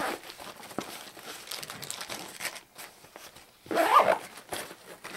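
Rummaging in a Maxpedition Falcon II nylon backpack: rustling, small clicks and crinkling as items are handled, with a louder rasping sound about four seconds in.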